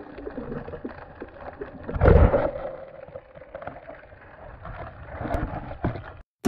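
Muffled underwater sound picked up through a camera housing: rushing, crackling water noise with a steady hum, a loud surge about two seconds in and a few sharp clicks near the end. It cuts off suddenly near the end.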